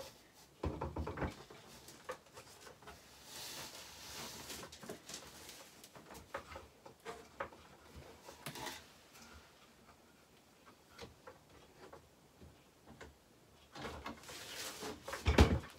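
Handling noises from an adjustable dressmaker's dummy being fitted onto its stand: scattered clicks and knocks with brief rustling, and one louder thump near the end.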